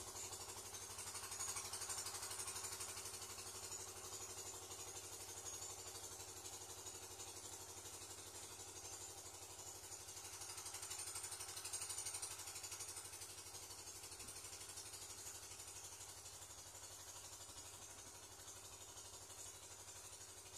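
Faint, steady engine hum with an even high hiss over it.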